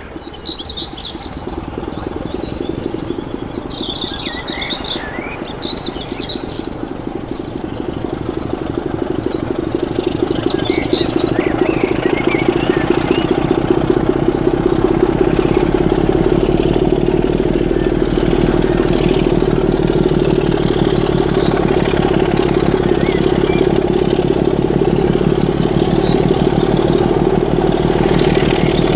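Class 24 diesel locomotive's six-cylinder Sulzer engine working under load as it hauls its train away from a station stop. The throbbing engine note grows louder over the first dozen seconds as the locomotive approaches, then holds steady. Birds chirp above it in the first half.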